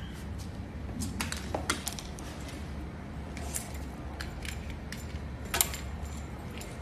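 Scattered clicks and light clinks as electrical cables and their connector plugs are handled and knock together, the sharpest one about five and a half seconds in, over a steady low hum.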